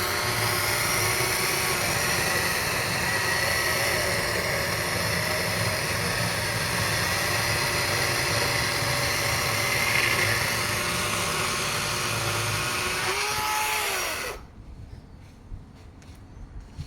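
Echo 56-volt battery-electric chainsaw running at full speed as its chain cuts through a log. Its motor whine holds steady, then winds down with a falling pitch and stops about fourteen seconds in.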